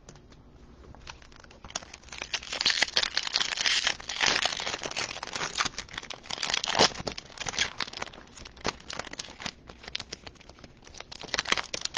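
A 2020 Topps Chrome trading-card pack wrapper being crinkled and torn open, in a dense run of crackling and rustling. It is quieter for the first second or so.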